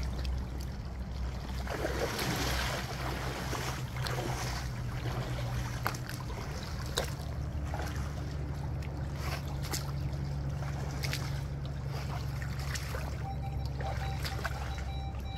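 Wading through a shallow stream: water sloshing and splashing around rubber boots at each step, over the steady flow of the stream.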